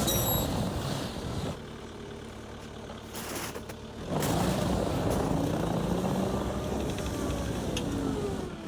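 Small John Deere loader's engine running under changing load. It eases off about one and a half seconds in and picks back up about four seconds in, its pitch sliding up and down.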